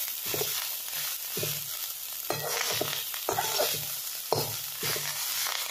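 Spatula scraping and knocking against a kadai over and over as leafy greens are stirred into hot oil with onions, under a steady sizzle of frying.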